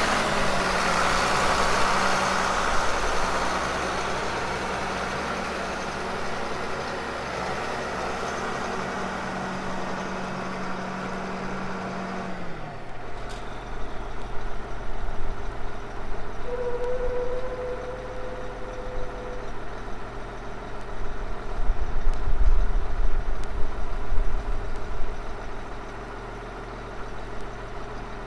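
John Deere 8760's 10.1-litre six-cylinder turbo diesel running steadily. About halfway through, its note drops and settles into a lower, steady idle.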